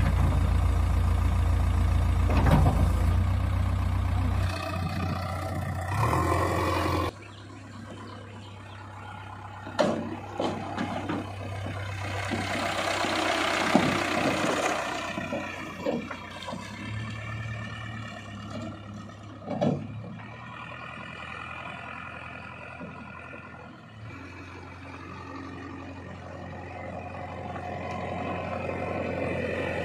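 JCB 3DX backhoe loader's diesel engine running, with its note rising and falling, and a few sharp metallic knocks. The sound changes abruptly about a quarter of the way in and again near the end.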